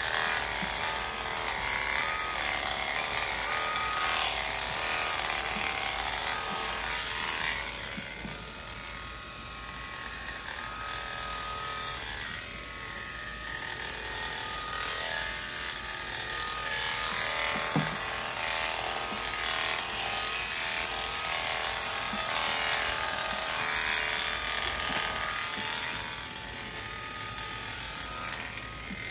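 Premier One electric sheep clippers buzzing steadily as they cut through a ram's fleece, the sound dipping and swelling as the blades bite into the wool and ease off. A single sharp click about eighteen seconds in.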